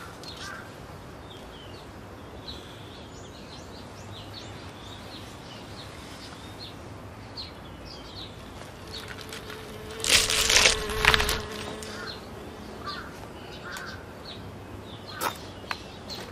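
Outdoor ambience with birds chirping in short high calls throughout. About ten seconds in comes a louder noise lasting over a second, and near the end a few short steps on gravel.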